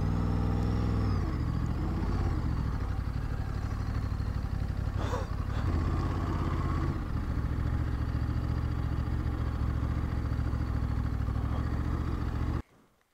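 Motorcycle engine running under way, its pitch rising and dipping slightly with speed changes; it cuts off suddenly near the end.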